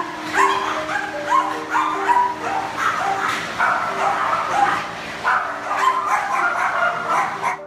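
Several dogs barking and yipping in a kennel hall, short barks coming about two a second.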